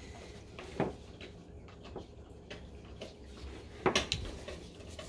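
Light clicks and knocks of small plastic containers and a mixing bowl being handled on a tabletop. There is one knock a little under a second in and a sharper cluster of clicks about four seconds in.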